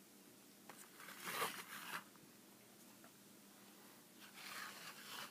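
Plastic action figures being handled, two short scraping rustles, one about a second in and one near the end.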